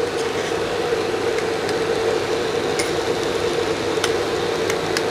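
Steady whirring hum of a fan, with a faint steady tone in it. A few light clicks come from a spoon tapping the metal puttu tube as grated coconut is dropped in.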